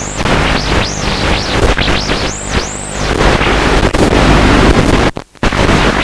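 Electric motor whine from an FPV model aircraft, rising and falling in pitch again and again with the throttle, over loud rushing wind noise. The sound cuts out briefly a little after five seconds in.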